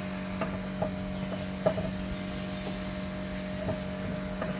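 Scattered light clicks and knocks from a hand-cranked broom-making press, its screw turned to tighten the broom head in the clamp, over a steady background hum.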